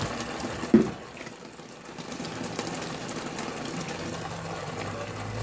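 Steady running-water noise, with one sharp knock about a second in; a low hum comes in near the end.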